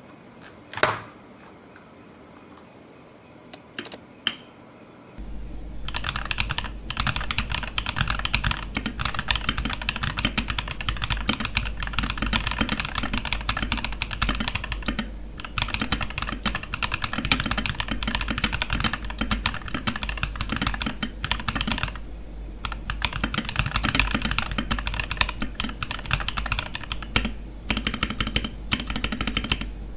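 Mechanical keyboard with Akko Cream Yellow Pro V3 linear switches being typed on. A few single keystrokes come first, then fast continuous typing starts about five seconds in and runs on with a couple of brief pauses.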